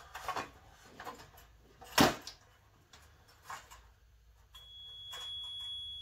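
Digital multimeter's continuity beep: a steady high tone starting about four and a half seconds in and lasting about two seconds, the sign that the heater's quartz element conducts and is good. Before it come light handling clicks and one sharp knock about two seconds in.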